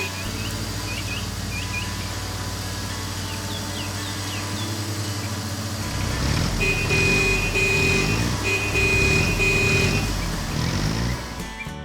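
Heavy construction vehicle engine running steadily, with a reversing alarm sounding a run of long beeps in the second half while the engine note rises and falls. Short bird chirps in the first half.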